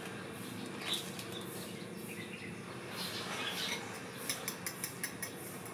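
Quiet kitchen sounds over a steady low hum: a light knock about a second in, then a run of quick, light clicks near the end as seasoning is added to a bowl of beaten eggs. Faint bird chirps sound in the background.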